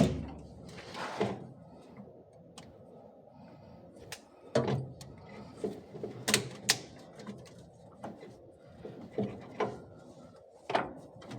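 Air-valve parts and tools being handled at a workbench during disassembly: scattered clicks and knocks, with a sharp click at the start and a short rushing noise about a second in.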